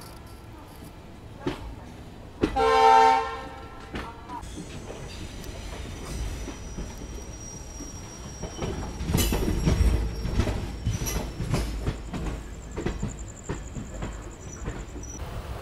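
An Indian Railways train horn sounds once, briefly, a few seconds in. Then the train's wheels clatter over the rail joints, louder from about nine seconds in.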